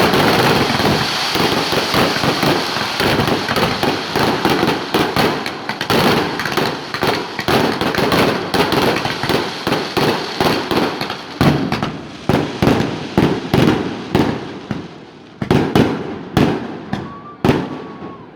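Fireworks display: a dense barrage of bangs and crackling bursts that thins out over the last several seconds into separate, fading explosions, with a brief rising whistle of a rocket near the end.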